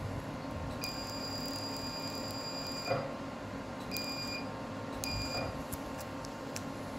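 A medical laser's emission tone beeps as the laser fires at seborrheic keratoses: one long beep of about two seconds, then two short beeps about a second apart. A steady machine hum runs underneath. There is a soft knock as the long beep ends and a few faint ticks near the end.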